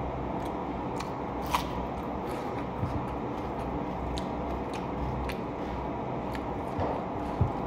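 Eating by hand: scattered sharp clicks and smacks of chewing, and fingers working rice and chicken curry on a plastic plate, about one a second, with a couple of soft thumps near the end. Under it runs a steady low background hum.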